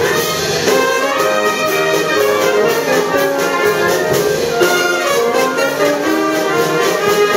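Town brass band playing a continuous tune, trumpets and trombones carrying the melody.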